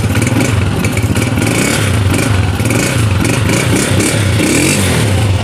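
Honda CG125's single-cylinder four-stroke engine running through its silencer after a rebuild with new piston rings and freshly set tappets, its speed rising and falling a little. It runs with a clean, even note and without the earlier tappet ticking.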